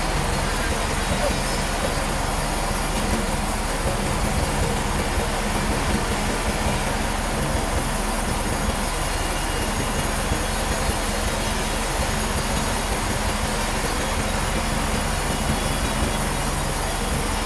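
Sawmill machinery running, a steady even noise with a low hum and no breaks or distinct strikes.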